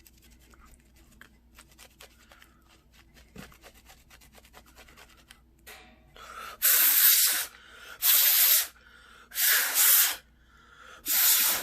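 Faint rustling and handling, then four loud bursts of rough rubbing, each about two-thirds of a second: a towel being rubbed hard over the wet parts of an opened flip phone to dry them.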